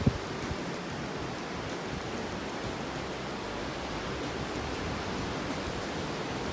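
Steady rush of ocean surf, with a brief low thump right at the start.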